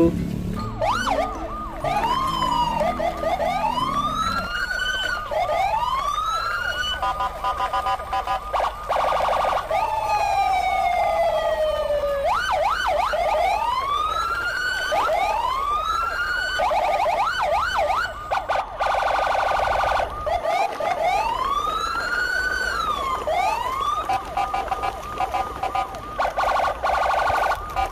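Electronic toy-style siren sounds: a string of short rising-and-falling wails and sweeps, broken up by a few rapid warbling bursts, over a steady high tone.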